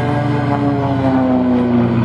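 Propeller aerobatic plane flying past, its engine note falling steadily in pitch as it goes by, over background music.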